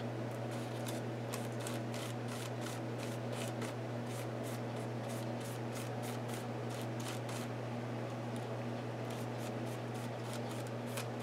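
Bristles of a flat paintbrush brushing and dabbing on a paper journal page, a run of short quick swishes a few times a second, over a steady low hum.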